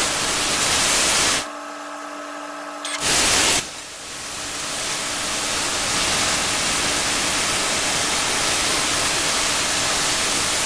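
A handheld laser welder on a DIY CNC gantry cutting steel plate, making a loud steady hiss. The hiss stops about a second and a half in, leaving a low machine hum. A short burst of hiss follows, then the cut resumes and runs on.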